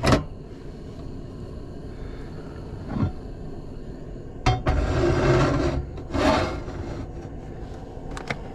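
Handling noises at a small propane camp grill: a sharp knock, another knock a few seconds later, then a loud rustling clatter lasting about two seconds, with a couple of clicks near the end, over a steady low background hiss.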